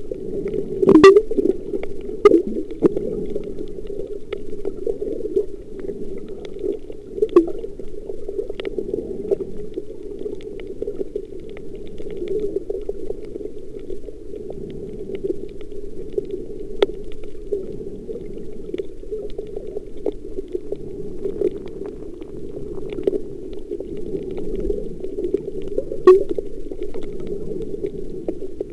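Muffled underwater sound picked up by a camera below the surface while snorkelling on a coral reef: a steady low rushing with scattered sharp clicks and crackles, the loudest about a second in and again near the end.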